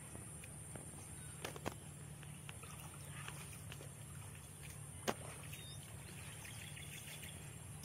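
Quiet open-air field ambience with a faint steady background noise, broken by a few faint sharp clicks, the loudest about five seconds in.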